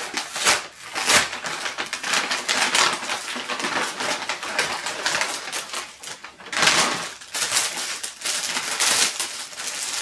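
Brown paper mailing bag rustling and crinkling as it is opened and handled by hand, with a louder stretch of crackling paper about two-thirds of the way through.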